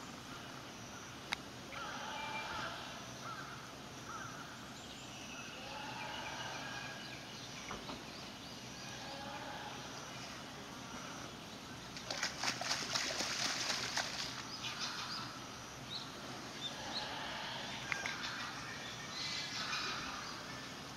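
Water splashing and sloshing as a Malayan tapir moves its head in a pool, with a burst of busier splashing a little past the middle that lasts about two seconds.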